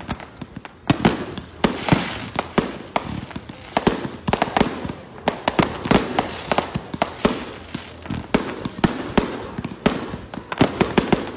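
Fireworks display: a rapid, irregular run of bangs from shells launching and bursting, with crackling between the reports.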